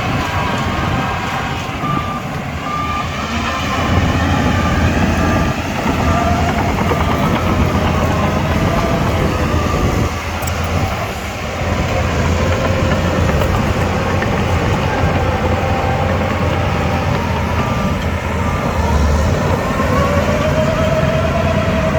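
Shantui DH17C2 crawler bulldozer running steadily at work, its diesel engine rumbling. A reversing alarm beeps repeatedly a couple of seconds in and again near the end.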